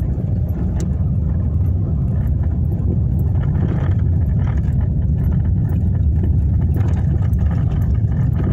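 Steady low rumble of a car driving slowly over rough, patched pavement, heard from inside the cabin, with scattered light clicks and knocks.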